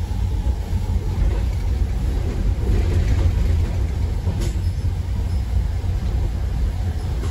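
Passenger train running, a steady low rumble of the moving carriage with a faint click about four seconds in.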